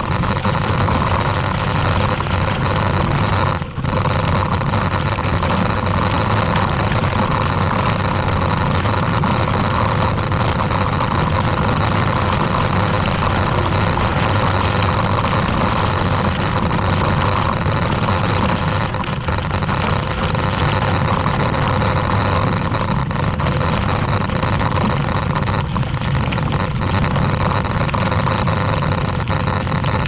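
Steady, loud rumble and rattle of a mountain bike rolling over a gravel forest road, picked up by a camera mounted on the bike, with a brief drop about three and a half seconds in.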